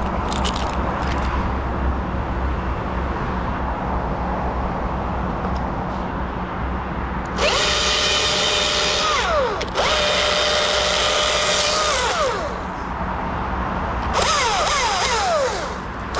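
A steady low rumble, then about seven seconds in a chainsaw revs to full throttle in three bursts, its revs falling away at the end of each.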